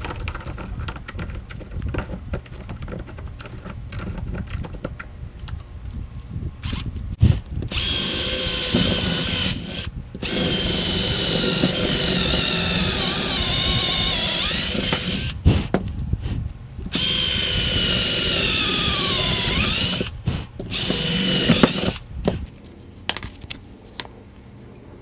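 Electric drill running in four long bursts as its bit bores into a rusty ball peen hammer head held in a vise, the whine sagging in pitch as the bit bites. The drilling starts about a third of the way in, after some low rumbling and light knocks, and stops shortly before the end.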